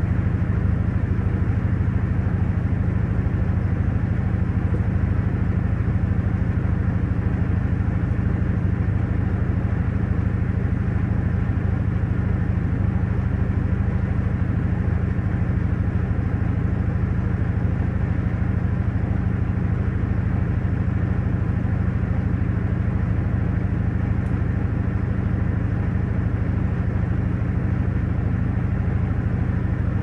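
Panasonic top-loading washing machine in its spin cycle, the tub spinning at high speed with a steady low hum.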